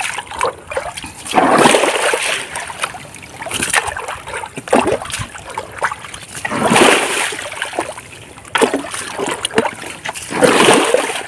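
Water splashing and sloshing in a shallow stream as someone wades forward and sweeps a hand net through it. Louder splashes come about a second and a half in, near seven seconds and again near ten and a half seconds.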